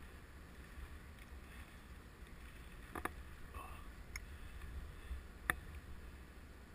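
Low rumble of wind on the microphone, with three isolated sharp clicks, the sharpest about five and a half seconds in.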